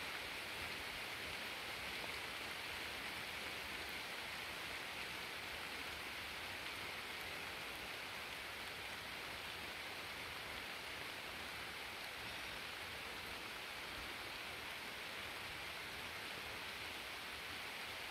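Steady, even hiss of light rain falling.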